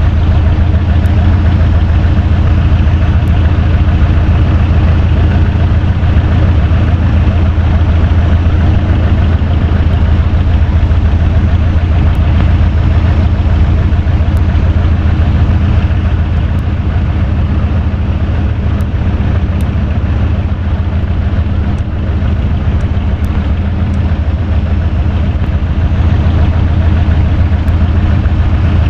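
Electric fan running steadily: a loud, even motor hum under a rush of moving air.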